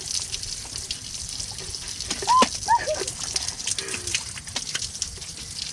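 Outdoor shower running, water spraying with a steady hiss. About two seconds in, a few short high sounds rise and fall over it.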